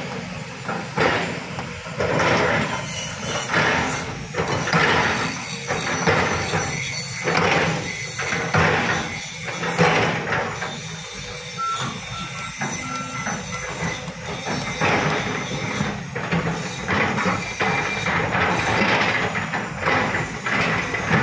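Crawler excavator working: a steady diesel engine note with irregular bursts of scraping and knocking, roughly one a second, as the bucket works rubble and ground.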